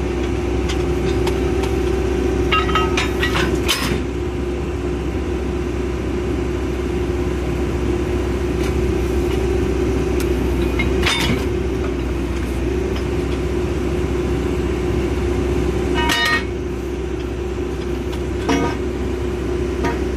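Water-well drilling rig's engine running steadily, with sharp metal clanks of wrenches and tongs striking the steel drill pipe at the rig table: a quick run of clanks a few seconds in, then single clanks every few seconds.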